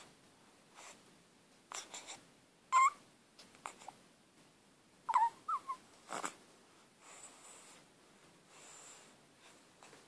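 A sleeping newborn baby's sleep noises: a few brief squeaks about three and five seconds in, and snuffly breaths, with quiet stretches between.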